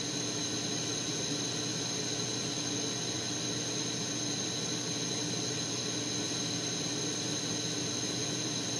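Propane-oxygen glassworking torch burning with a steady hiss.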